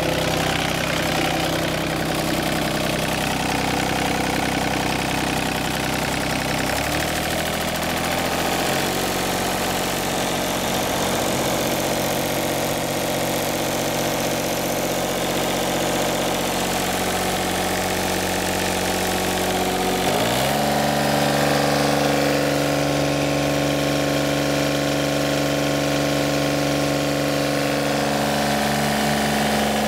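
Yanmar 3TNE82A three-cylinder diesel engine of a John Deere 3215B fairway mower running steadily at idle, then speeding up in two steps, about seven seconds in and again about twenty seconds in.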